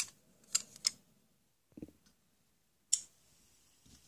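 Hard plastic toy tool pieces clicking against each other as they are handled: a few sharp clicks scattered through, with a duller knock a little before two seconds in.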